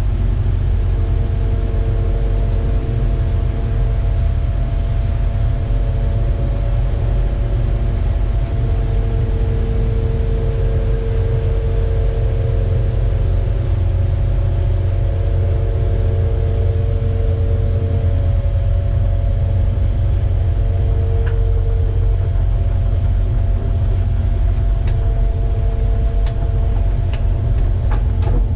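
Kubota excavator's diesel engine running steadily, with a few sharp clicks near the end.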